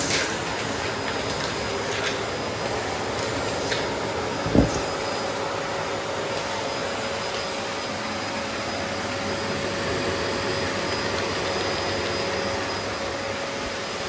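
A Bosch BGS21X320 bagless canister vacuum cleaner running steadily with a whining hum. A few sharp clicks come in the first four seconds, and one louder knock about four and a half seconds in.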